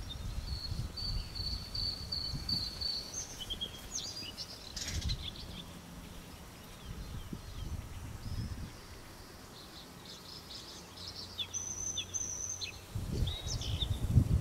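Small birds singing at intervals: a high, steady whistled note held for about two seconds near the start and another shorter one near the end, with scattered short chirps in between. A low background rumble runs underneath, with some low knocks right at the end.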